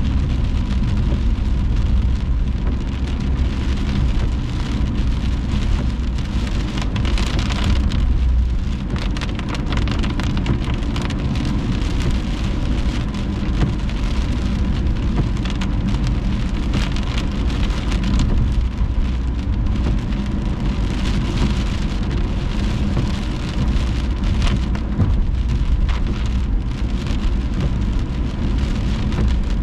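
Rain falling on a moving car in steady rain, over the car's steady low rumble of tyres on the wet road.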